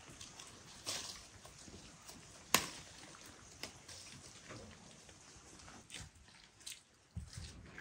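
Wet quince-tree leaves and branches rustling as the fruit is picked by hand, with a few sharp clicks and snaps, the loudest about two and a half seconds in.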